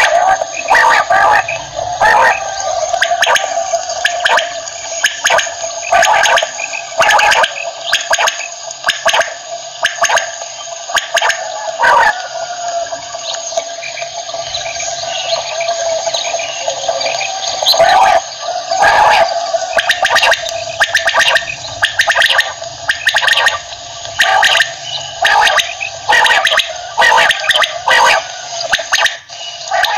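Common quail calling over and over, many short sharp notes in quick irregular succession, often overlapping.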